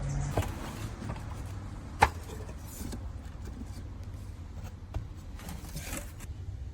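A few clicks and light scraping over a low steady hum, with one sharp click about two seconds in.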